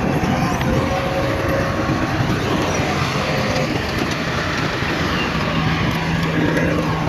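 Heavy earthmoving machinery running steadily: a diesel engine with scattered clanks and clicks.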